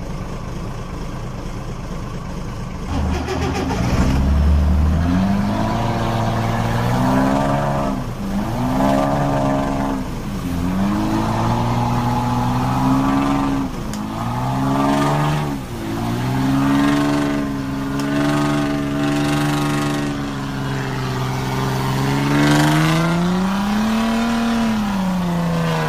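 A truck engine revving over and over, its pitch rising and falling in repeated swells, as if straining to pull free. A low rumble comes first, and the revving starts about five seconds in.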